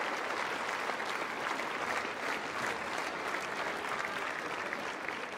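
Tennis stadium crowd applauding a game just won, many hands clapping in a steady patter that fades a little toward the end.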